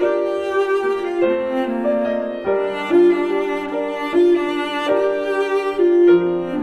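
Instrumental music of bowed strings with piano, a slow melody of sustained notes.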